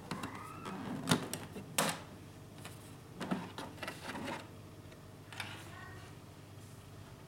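Handling clatter while unboxing: a run of sharp plastic clicks and knocks with rustling and a few short squeaks, the loudest click about a second in.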